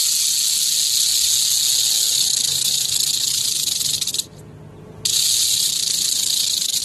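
Rattlesnake buzzing its tail rattle: a steady high buzz that breaks off for under a second about four seconds in, then starts again.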